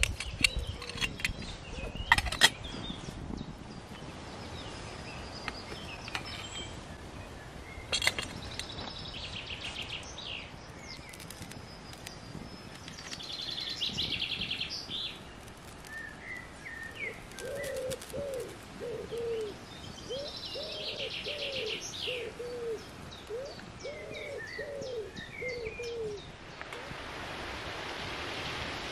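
Woodland birds singing, a songbird with quick high trills, and from about the middle a dove giving a long series of low cooing calls. A few sharp clicks sound in the first seconds and once about eight seconds in, and a steady hiss comes in near the end.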